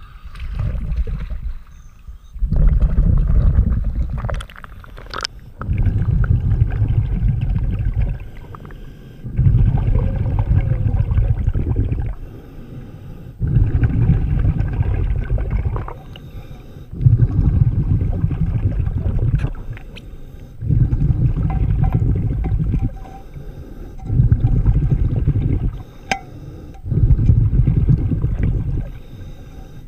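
A diver's breathing regulator heard underwater: exhaled bubbles rumbling out in regular bursts of about two seconds, roughly eight breaths, with quieter inhalations between them.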